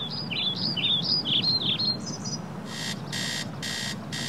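A songbird sings a quick, warbling phrase of high chirps. About halfway through, an electronic alarm clock starts beeping, about two beeps a second.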